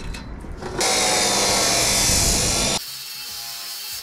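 Metal cut-off saw cutting square steel tube: a loud, even, hissing cut begins about a second in and stops abruptly after about two seconds, followed by quieter noise.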